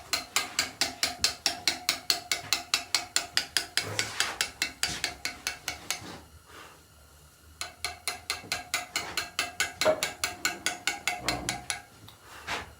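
Rapid, even taps of a mallet on a chisel cutting stone, about five strikes a second, each with a light ring; the tapping stops for a second and a half about six seconds in, then carries on.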